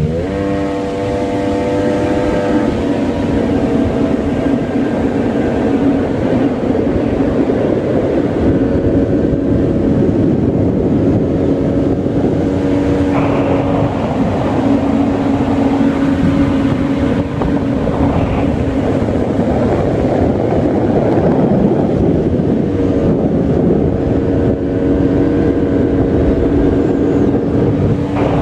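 Jet ski engine running steadily at speed, a constant drone with a held tone over a loud rushing noise.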